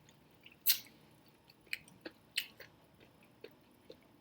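A person chewing food close to the microphone: a string of short, sharp mouth smacks and crunches, the loudest just under a second in and again about two and a half seconds in.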